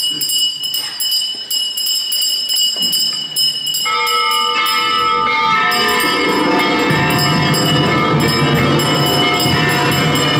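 A bell rings and jingles repeatedly. About four seconds in, instrumental music with held notes comes in and grows louder and fuller.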